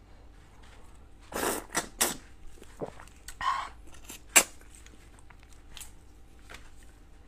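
Close-miked sounds of eating raw red shrimp: shells cracking and tearing as they are pulled apart, and a short wet sucking at a shrimp head. A single sharp crack about four seconds in is the loudest.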